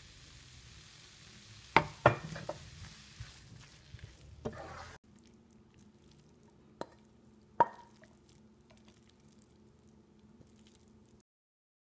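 Noodles and greens stir-frying in a pan with a light sizzle, a wooden spatula knocking and scraping against the pan a few times. Then two clinks as the food is tipped from the pan into a ceramic bowl, the second with a short ring.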